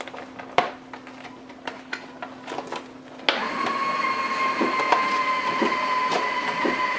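Cardboard toy box with a plastic window being handled, with light taps and clicks. About three seconds in, a steady small-motor whine starts and keeps running.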